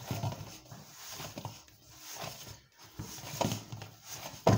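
Hands kneading oiled chapati dough in a stainless steel bowl: irregular soft squishing and rubbing as the dough is pressed and turned, with dull thumps, the loudest a sharp knock near the end.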